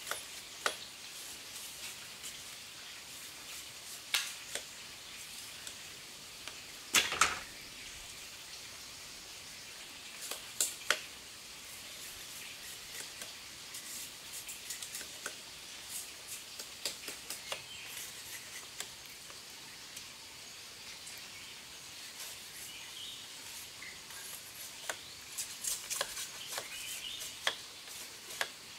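A knife splitting and shaving a thin bamboo strip: scattered sharp cracks and short scraping strokes. The strongest strokes come about 4, 7 and 11 seconds in, and a run of quicker strokes comes near the end, over a steady faint hiss.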